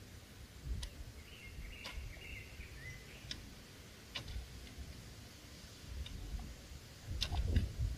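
A straight-bladed hoe chopping and scraping dry, hard soil: a handful of faint, irregular ticks as the blade strikes. A low wind rumble runs underneath, and a faint bird chirps briefly a second or two in.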